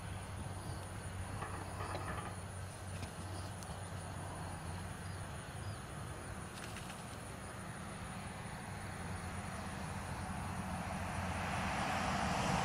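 Steady low rumble of vehicle noise, with a vehicle growing louder over the last few seconds as it approaches.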